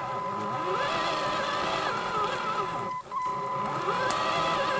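TXT RC truck's electric drive motors and gearboxes whining as it crawls through brush, the pitch rising and falling with the throttle. The sound drops out briefly about three seconds in.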